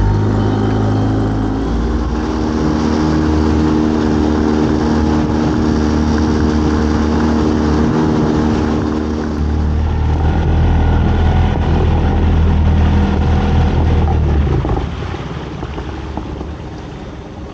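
Small fishing boat's engine running steadily at a constant pitch, then easing off about three-quarters of the way through as it is throttled back.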